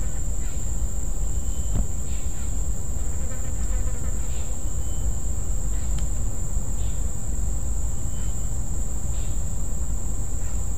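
Steady high-pitched chorus of crickets or similar insects, with a few faint short calls from other creatures over it, above a constant low rumble. Two faint clicks, about two and six seconds in.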